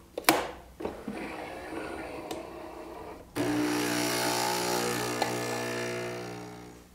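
A Nespresso U single-serve espresso machine brewing a shot. A sharp click comes just after the start, then the machine's pump starts abruptly about three seconds in and hums steadily as the espresso runs into the glass. The hum fades away near the end.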